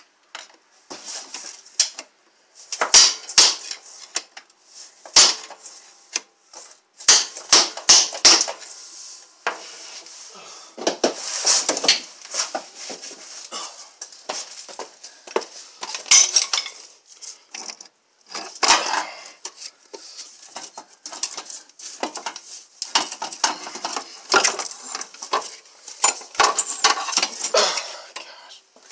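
Irregular metal-on-metal knocking and clanking, in clusters of ringing strikes with some scraping, as a 2007 Nissan Altima's CV axle bearing housing is knocked loose and worked out of its carrier bracket.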